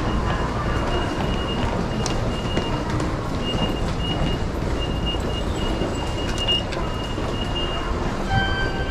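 Railway station platform ambience: a steady low rumble of trains, with a thin high tone that comes and goes in short dashes. A few clear chime-like tones start near the end.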